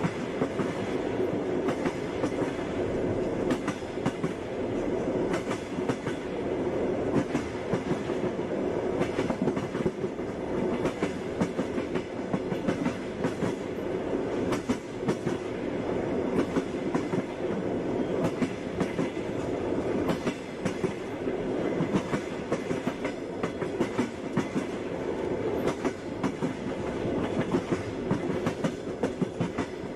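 Railway carriage running at speed: a steady rumble with the clickety-clack of wheels knocking over rail joints.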